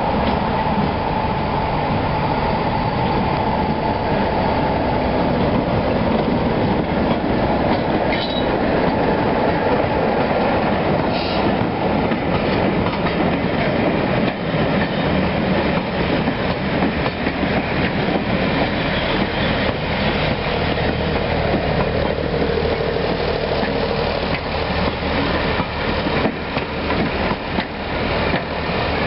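Class 33 diesel locomotive 33063 arriving with a train of coaches, its Sulzer eight-cylinder diesel engine running as it passes, with a high steady whine that fades after the first few seconds. In the second half the coaches run by with wheels clicking over the rail joints.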